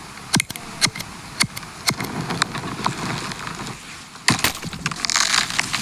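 A series of sharp knocks or clicks, about two a second, followed about four seconds in by a louder, noisier rustling burst.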